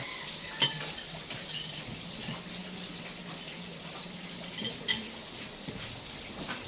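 Tableware clinking at a meal: two sharp clinks about four seconds apart, with small clatters between, over a steady low hum.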